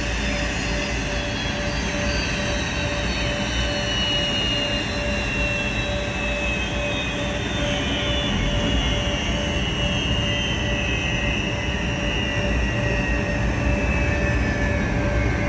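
Airbus A320's jet engines idling at the gate, a steady deep rumble under a high whine whose pitch drifts slowly lower. The engines are kept running to supply electrical power because the APU is inoperative and ground power is not yet connected.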